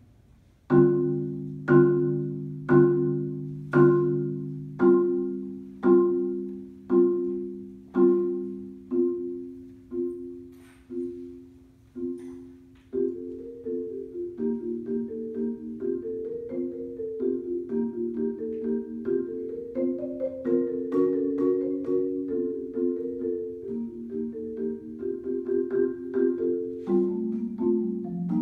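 Solo marimba played with four mallets: a chord struck about once a second, each ringing and fading, the chords growing softer, then about halfway through a flowing run of quicker notes takes over.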